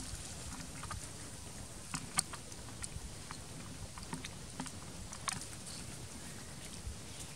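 Scattered faint crackles and ticks of dry leaf litter as macaques shift and handle a mango, over a steady low outdoor rumble.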